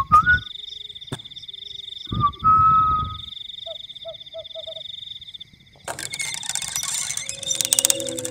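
A man whistling clear, single-pitch notes, once briefly at the start and again about two seconds in, over a steady trill of night insects and frogs calling in short repeated croaks. About six seconds in a metallic rattling clatter starts and grows louder: a door handle with keys hanging in its lock being jiggled.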